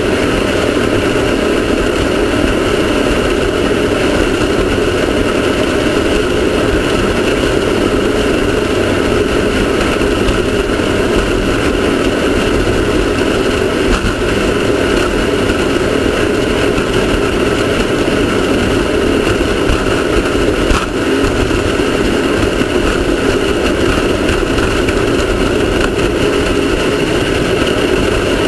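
Off-road race car's engine running steadily at a constant pitch under a steady rushing noise, with a single brief knock about 21 seconds in.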